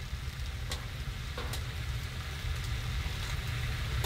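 Wood fire crackling in a woodstove, with sharp pops about once a second over a steady low rumble.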